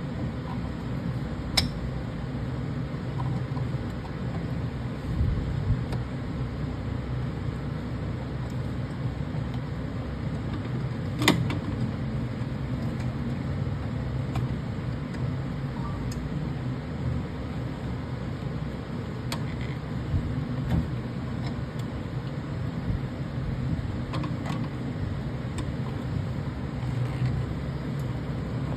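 Steady low machine hum, with a few sharp clicks and knocks from parts and tools being handled during valve replacement on the analyzer; the loudest click comes about 11 seconds in.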